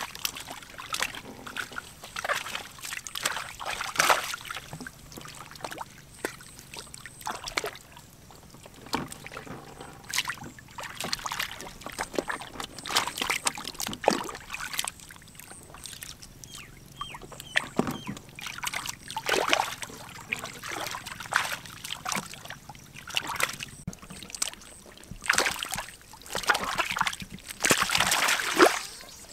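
Hands splashing and sloshing through shallow, muddy ditch water while groping for fish, in irregular bursts. The longest, loudest splashing comes near the end as water is scooped and thrown aside.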